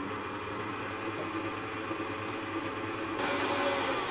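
Electric stand mixer running steadily, its wire whisk beating flour into a thick cake batter. It gets louder, with more hiss, about three seconds in.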